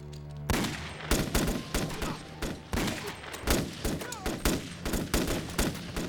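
Rapid, overlapping military rifle gunfire from several weapons in a sustained exchange, starting about half a second in with many sharp shots in quick, irregular succession.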